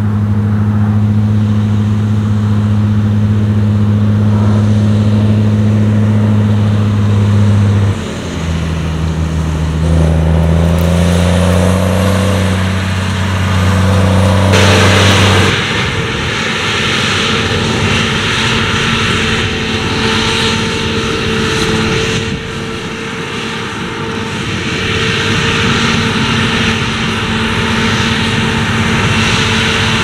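A JCB Fastrac tractor engine runs under load pulling a trailer, its engine note shifting in pitch about a quarter of the way in. About halfway through, the sound switches to a Claas Lexion 600 TerraTrac combine harvester harvesting oilseed rape, a steady broad machinery noise with a constant whine.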